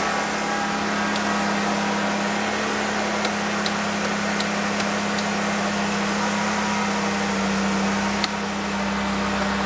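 Jeep Wrangler JK engine idling steadily, with a few faint clicks over it.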